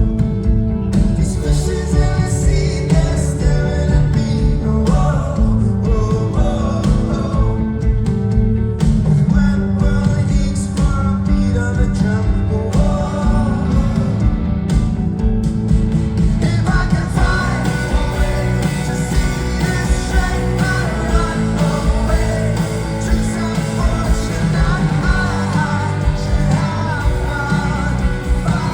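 Rock band playing live, with singing over guitars, bass and drums. The music is loud and unbroken, and the sound fills out about halfway through.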